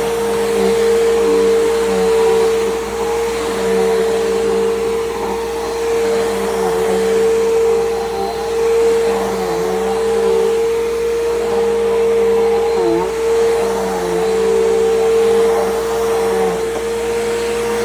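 Bissell PowerGroom bagless upright vacuum cleaner running steadily with a loud, even motor whine. The pitch dips briefly a few times in the second half.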